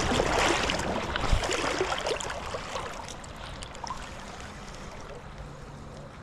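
Water splashing, loudest over the first two seconds with a dull thump, then fading to a steady wash of river water.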